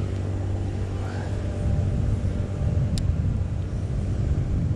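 A boat engine running steadily with a low, even hum, getting a little louder over the first couple of seconds. A single sharp click about three seconds in.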